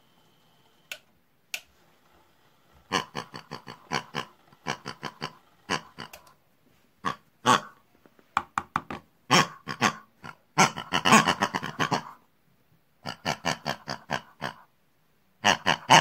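Pig-like grunting and oinking in quick runs of short pulses, several bursts with brief pauses between them, after two sharp clicks near the start.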